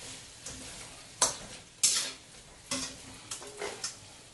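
Metal utensils scraping and clinking in a wok-style pan in about five quick strokes, as fried chicken pieces are tossed to coat them in a hot sauce, over a faint sizzle.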